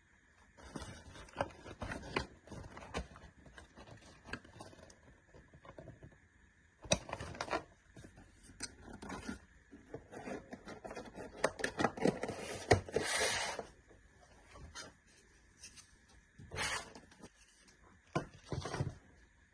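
Packaging and product being handled by hand: irregular rustling, rubbing and scraping in bursts, loudest a little past the middle, with short quiet gaps between.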